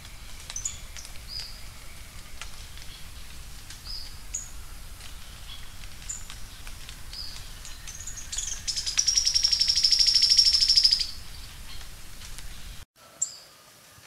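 Sharp-billed treehunter calling with short, high, thin notes every second or so, then giving a loud, fast, high trill of about two and a half seconds. The sound cuts out abruptly near the end.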